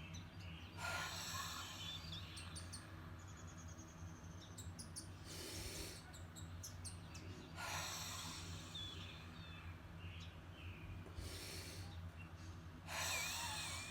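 A woman taking slow, deep breaths in through her nose and letting them out, several breaths a few seconds apart. This is the huff-cough breathing cycle, repeated to loosen airway congestion until a spontaneous cough comes. Faint bird chirps and a steady low hum sit underneath.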